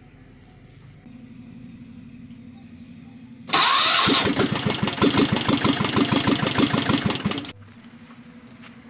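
Electric starter motor of a Royal Enfield diesel Bullet cranking the engine: a short rising whine as it spins up about three and a half seconds in, then a rapid run of pulses, about five or six a second, for around four seconds before it cuts off suddenly. The self-starter is newly fitted.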